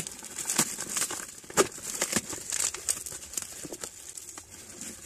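Packaging being crumpled and torn as an item is unwrapped, with irregular sharp crinkles and clicks.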